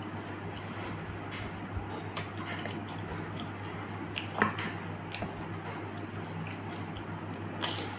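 Panipuri being eaten: wet, squishy chewing of the crisp shells and spiced water, with small crunching clicks and one sharper click about four and a half seconds in. A steady low hum runs underneath.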